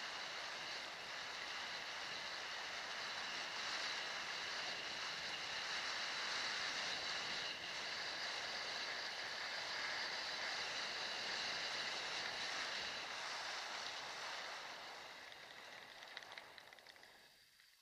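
Kick scooter rolling along a concrete path, a steady rushing hiss from the wheels on the surface. It fades away over the last few seconds as the scooter slows.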